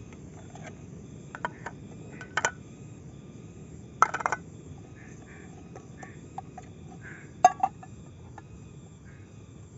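Camp cookware clinking and knocking, with a handful of sharp metal-on-metal clinks: a few light ones early, a louder cluster about four seconds in and another about seven and a half seconds in, over a steady low background hum.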